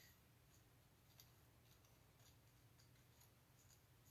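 Near silence, with a few faint soft ticks of paper and ribbon being handled on a card.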